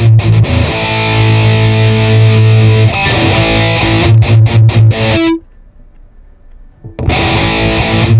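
Heavily distorted electric guitar through the Mooer Prime S1's Metal Zone distortion model: fast low chugs about six a second, a held chord, more chugs, then it stops dead for about a second and a half before the chugging resumes.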